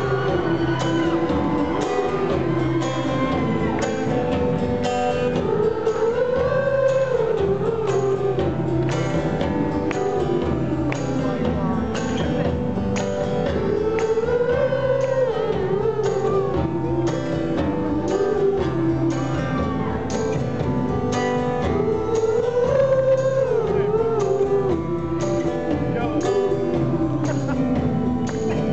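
Live band playing an indie folk-rock song: strummed acoustic guitar, electric bass and drums under a male lead vocal. The vocal sings in phrases that rise and fall, over a steady beat, with the echo of a large hall.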